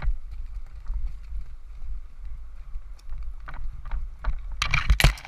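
Low wind and handling rumble on a body-worn GoPro microphone, with scattered light clicks and crackles of movement and a louder rustling, scuffling burst near the end.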